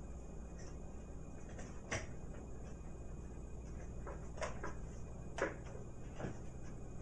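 Plastic flap of a dog door knocking against its frame as a kitten paws and pushes at it: about six irregular taps, the loudest about five and a half seconds in.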